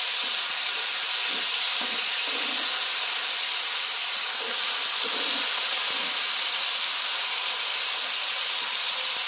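Kingfish steaks and chopped garlic, ginger, scallion and chili sizzling in hot oil in a frying pan: a steady, even hiss.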